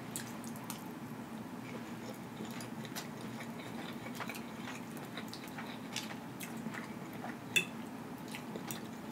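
Close-miked chewing and small mouth clicks from someone eating a mouthful of rice, with soft clicks of a metal fork on the plate and one sharper ringing clink about seven and a half seconds in, over a faint steady hum.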